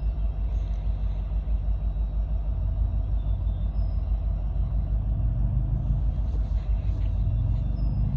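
Diesel locomotives of a stopped freight train rumbling, then revving up with a rising pitch from about five seconds in as the train gets ready to start rolling.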